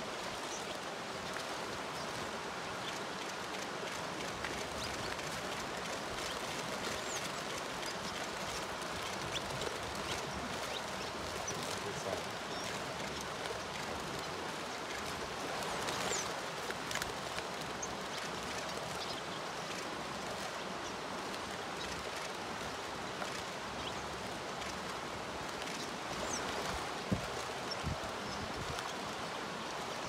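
Steady outdoor ambience, an even rushing noise, with a few faint short bird chirps here and there. A single sharp click a few seconds before the end.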